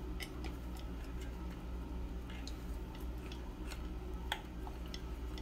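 Light, irregular clicks and taps of a wiring harness and its connectors being handled against a minibike's metal frame, over a steady low hum.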